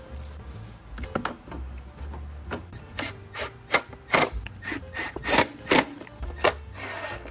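Hard plastic motorcycle parts and hardware being handled and fitted together by hand: irregular short scraping and knocking strokes, coming about twice a second from about three seconds in.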